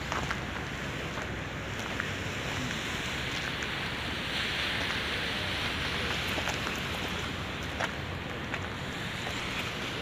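Steady rushing wind noise outdoors, swelling a little about halfway, with scattered faint clicks of footsteps on gravel.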